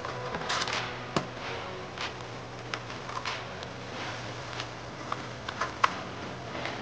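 Akko V3 Pro linear switches being pressed one by one into the Royal Kludge RK87's hot-swap sockets: irregular, sharp plastic clicks and snaps, about a dozen over several seconds, over a steady low hum.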